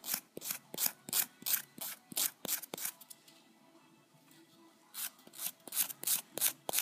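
Quick strokes of a nail file across the tip of a fingernail, about three a second, filing off the overhanging edge of a nail wrap. The filing stops for about two seconds mid-way, then starts again.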